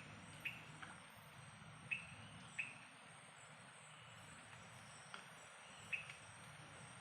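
Insects trilling steadily and high-pitched, with a handful of short, sharp chirps scattered through.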